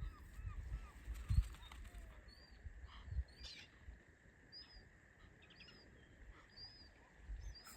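A gull calling in a quick series of short, arched notes for the first second or so. Thin, high call notes then repeat every half second or so, over intermittent low rumbling of wind on the microphone.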